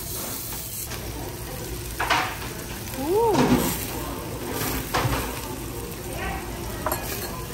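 Beef intestines (tetchan) sizzling steadily on a tabletop barbecue grill's wire mesh, with a few light clicks. About three seconds in, a short hum of a voice rises and falls.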